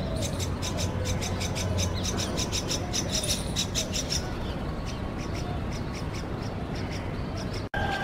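Common myna chicks begging: a rapid series of short, high chirps, several a second, that thin out after about four seconds.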